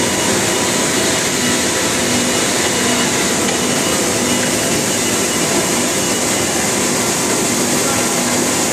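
Steady machinery noise from a melamine laminating line's automated board-handling equipment: a loud, even hiss with a faint low hum underneath and no distinct knocks or strokes.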